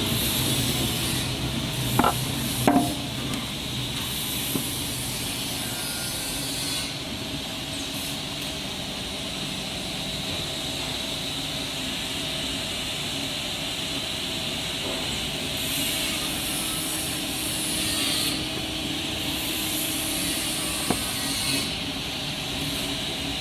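Automatic band saw and its feed conveyor running, a steady machine noise with a hiss that comes and goes, with a few sharp knocks about two seconds in and again near the end.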